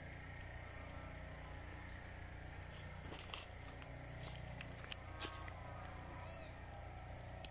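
Insects in a date palm grove, a faint, steady high-pitched chirring, with a couple of soft clicks about three and five seconds in.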